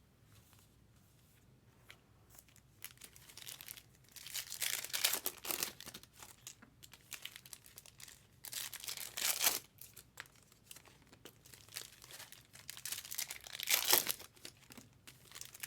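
Trading-card pack wrappers being torn open and crinkled, in several bursts of crackling: about four seconds in, around nine seconds, and again near the end.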